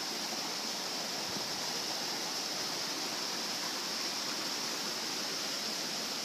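Stream water rushing over rocks, a steady, unbroken rush.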